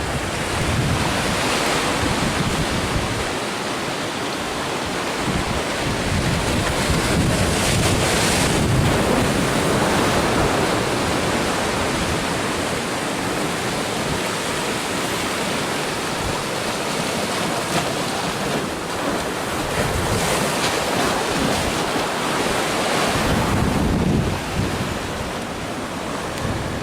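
Stormy sea waves surging and breaking against stones, one after another, with a continuous rush of surf between the crashes. Wind is buffeting the phone's microphone.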